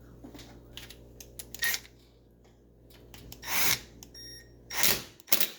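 Small metal clicks and scrapes of a screwdriver driving screws back into a stove's top panel, with two louder short rasps in the second half and a sharp click near the end.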